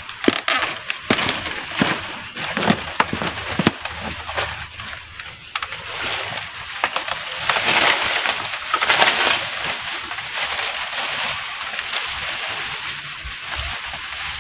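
Knocks and creaks of a bamboo ladder being climbed. A few seconds later comes the crinkling rustle of a plastic bag around a banana bunch being handled.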